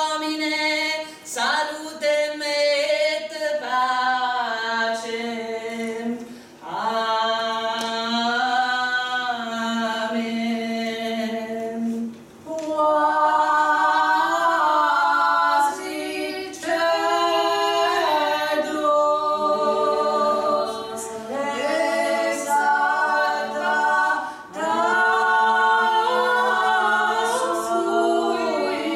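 A small group of women singing a cappella, several voices at once in harmony, in phrases broken by short breaths.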